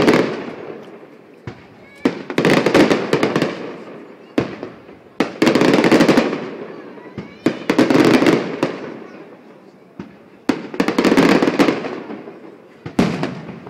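Aerial firework shells bursting in a display, about seven sharp bangs spaced one to three seconds apart, each followed by a long rolling echo that fades away.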